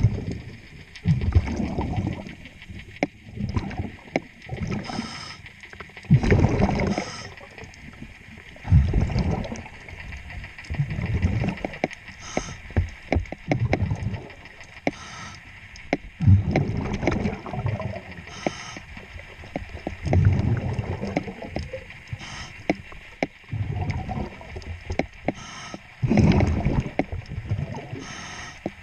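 Scuba diver breathing through a regulator underwater: rushing, gurgling exhaust-bubble bursts every two to three seconds, with a few short sharp clicks between them.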